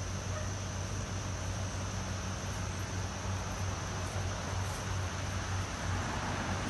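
Steady outdoor background: an even, high insect buzz with a low steady hum beneath it.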